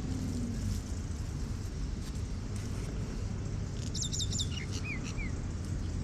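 A bird calling about four seconds in: a quick run of high falling notes, then a few lower falling slurs, over a steady low background rumble.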